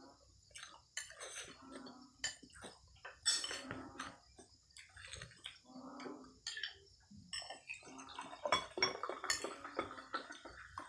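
Eating noises with small clicks against a plate, then cola poured from a glass soda bottle during the last few seconds. A steady faint high chirping of crickets runs underneath.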